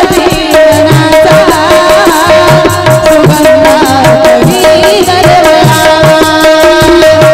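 Marathi devotional bhajan music: tabla beating a steady rhythm, its low drum strokes bending in pitch, under held melody notes.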